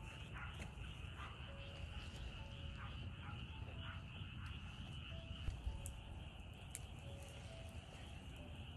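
Countryside ambience: a steady high-pitched insect drone, with a few short calls and low rumbling noise underneath.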